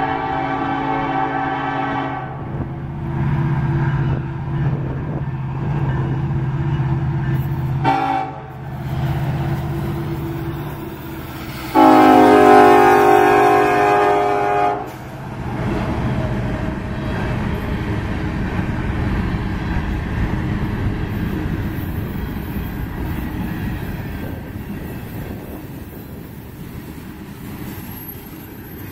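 Union Pacific freight train passing close by, its lead diesel locomotive sounding its air horn three times: a long blast at the start, a short one about 8 seconds in, and the loudest and longest from about 12 to 15 seconds. Under the horn the EMD SD70ACe and GE AC44CW locomotives' diesel engines run with a steady low drone until they pass. After that comes the steady rolling rumble of tank cars going by, slowly fading.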